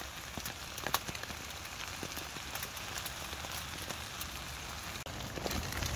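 Steady rain falling, with many sharp drop ticks scattered through the patter; one louder tick about a second in.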